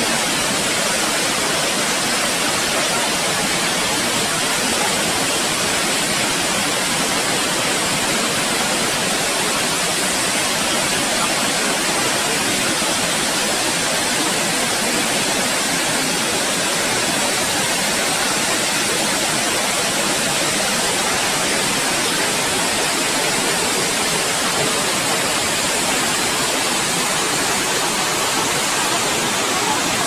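Waterfall's falling water making a loud, steady, unchanging rush.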